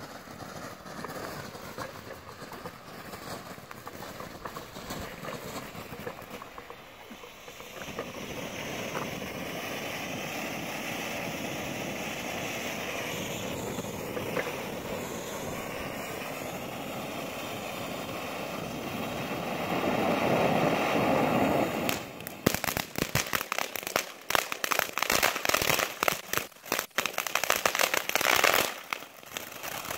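Ground-fountain fireworks spraying sparks with a steady hiss that swells louder about twenty seconds in. A couple of seconds later it turns to dense, rapid crackling, which runs to near the end.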